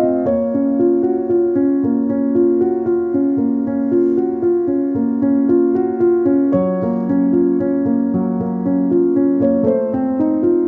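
Background piano music: a steady melody of notes changing every fraction of a second.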